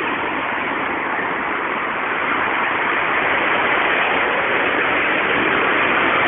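Steady rushing noise, recorded through a low-quality cellphone microphone, growing slightly louder toward the end.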